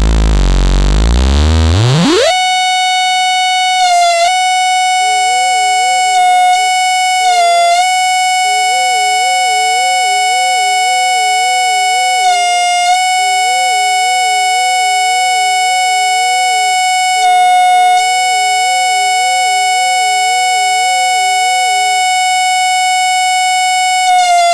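Warning sirens under test. One siren winds up over about two seconds to a steady, high wail that dips briefly a few times and starts to wind down near the end. From about five seconds in, a second, lower tone warbles alongside it, wavering about twice a second.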